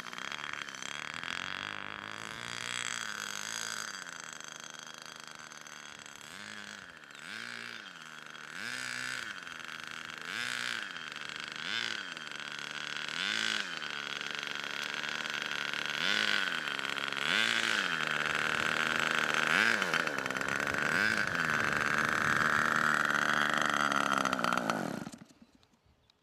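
Super Tigre G-60 two-stroke glow engine of a model aircraft running at low throttle while taxiing. It gives a string of short throttle blips about every second and a half, then runs a little higher and steadier before cutting off near the end.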